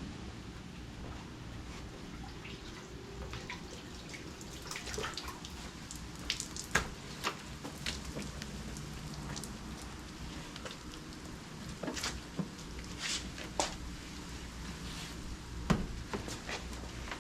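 Soapy water splashing and dripping as a freshly painted car bumper is washed down with a rag, in irregular small splashes and clicks over a low steady hum.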